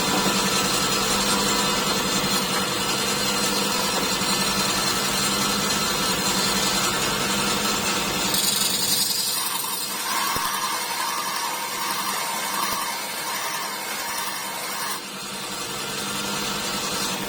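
Robert Sorby ProEdge belt sharpener running steadily with a coarse abrasive belt while a drill bit's clearance bevel is ground on it. From about 8 seconds in the grinding grows louder and then swells and fades about once a second for several seconds as the bit is worked against the belt.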